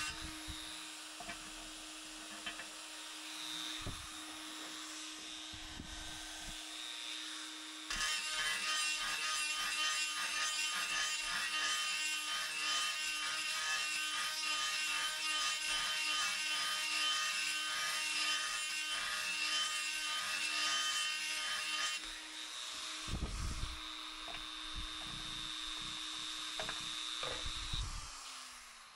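Electric die grinder running with a steady whine while its bit grinds and deburrs steel bushings so they fit the tube. The grinding is loudest through the middle, and the motor winds down near the end.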